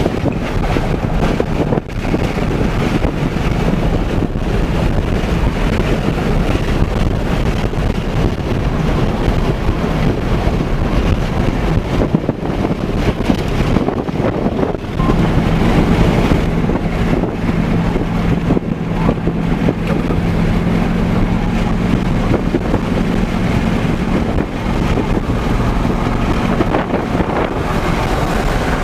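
Loud road and wind noise inside a moving vehicle, with a steady low hum that comes in about halfway through and fades out near the three-quarter mark.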